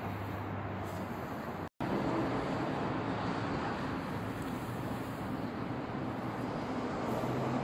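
Steady noise of road traffic crossing a highway bridge overhead, a constant hum with no single vehicle standing out. The sound cuts out for an instant about two seconds in, then carries on.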